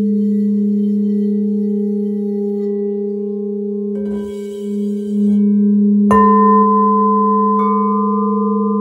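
Crystal Tones alchemy crystal singing bowls ringing with a steady, deep sustained tone after being played round the rim with a mallet. There is a brief rustle of handling near the middle. About six seconds in, a bowl is struck and adds a bright higher tone, and another higher tone joins about a second and a half later.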